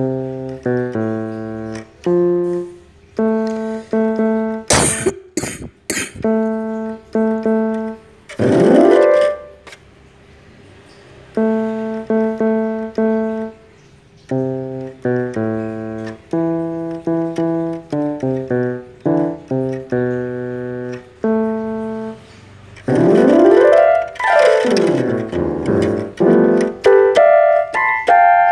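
Electronic keyboard played with a piano sound: short chords and melody notes with brief pauses. A sweep up in pitch comes about eight seconds in, and sweeps up and down come around twenty-four seconds. Three sharp knocks sound about five seconds in.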